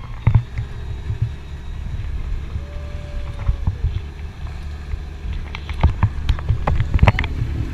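Tow boat's engine running under heavy wind buffeting on an action camera's microphone, with a cluster of sharp knocks and thumps about six seconds in.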